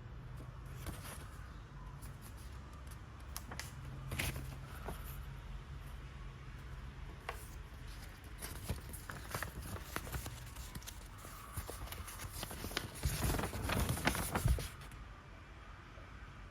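Paper instruction sheet being handled and turned: scattered soft clicks and rustles over a low steady hum, with a louder burst of rustling about 13 seconds in that stops about a second and a half later.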